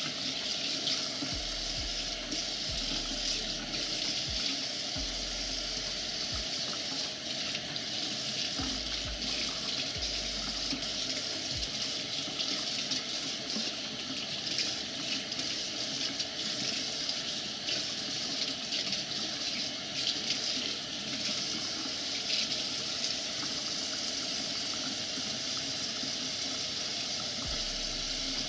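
Kitchen pull-down faucet running in a steady stream, the water splashing over wet dreadlocks and into the sink.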